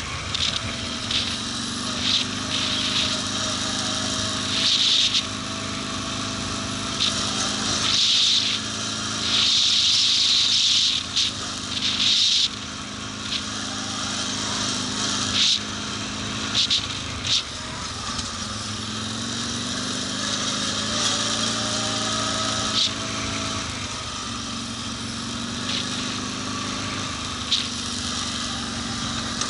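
Quad bike (ATV) engine running steadily under way on a rough, potholed road, its pitch rising and falling a little with the throttle. Short bursts of rattling hiss break in repeatedly over the bumps, most thickly about a third of the way in.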